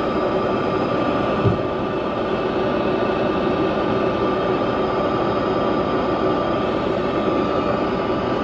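Semi-truck diesel engine running steadily as the truck moves slowly, heard inside the cab as an even drone with a steady whine. A single short knock about one and a half seconds in.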